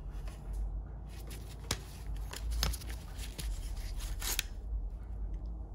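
Handling noise of a hatchet in a leather sheath being moved by gloved hands, leather rubbing, with a few sharp clicks of metal tools knocking together in a toolbox drawer.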